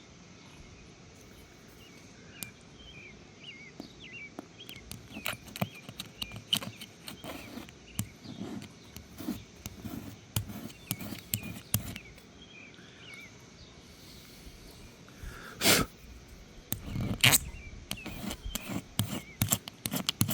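Scattered clicks and soft knocks of hands and tools working at a car windshield, with two louder sudden rustling knocks near the end, over faint outdoor bird chirps.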